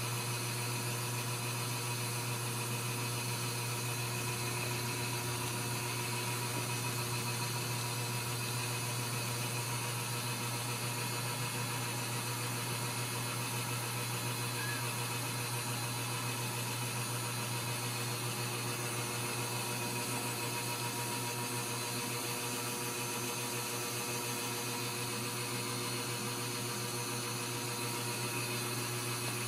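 Steady hiss with a low hum, unchanging throughout, with no distinct sounds standing out: background room or recording noise.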